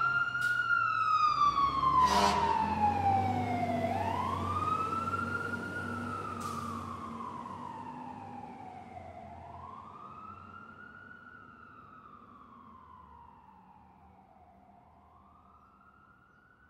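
Emergency vehicle siren wailing, slowly rising and falling about every five seconds over a low engine rumble, with a sharp blast about two seconds in. It fades out steadily.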